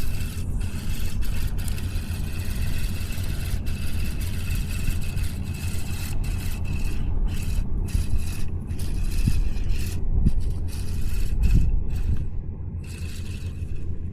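Wind buffeting the microphone with a steady low rumble, and a rushing hiss that cuts in and out repeatedly.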